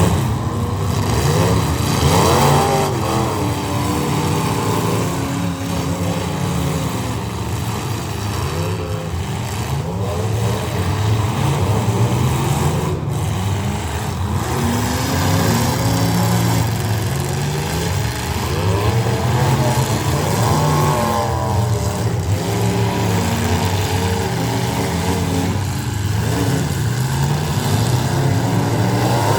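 Several full-size demolition derby cars' engines running and revving at once, their pitches rising and falling over one another.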